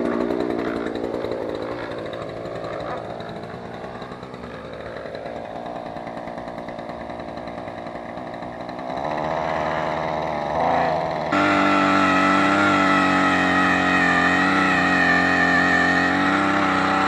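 A small gasoline engine running, its pitch wandering up and down, then jumping to a louder, steady higher speed about eleven seconds in.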